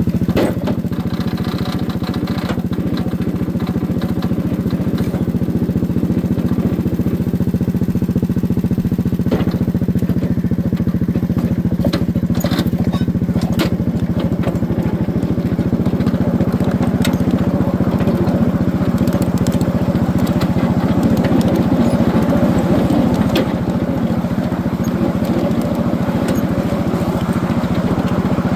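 Small engine of a ride-on miniature train running steadily as the train rolls along its track, with scattered clicks and knocks from the wheels and the loaded gondola car.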